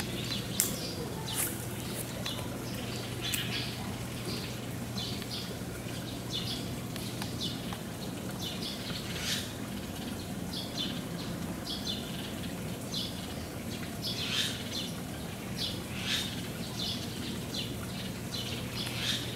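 Small birds chirping, with short high calls repeating all through, over a steady low hum. A few sharp clicks come in the first couple of seconds.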